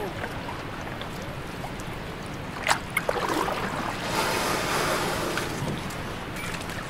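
River water splashing against an inflatable raft as paddles stroke the water. A sharp knock comes about two and a half seconds in, and a louder spell of splashing follows about a second and a half later.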